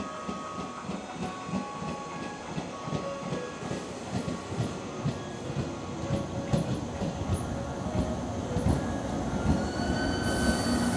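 A 413 series electric multiple unit pulls into the platform and slows. Its wheels knock over the rail joints, getting louder as it nears. Near the end a rising squeal and a short burst of high hiss come in.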